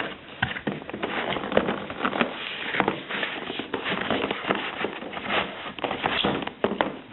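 Cardboard keyboard box and packaging being opened and handled: continuous rustling with many small sharp clicks and snaps.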